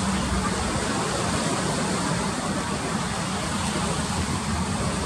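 Fast current of the Latorytsia river rushing in choppy standing waves: a steady, even rushing noise.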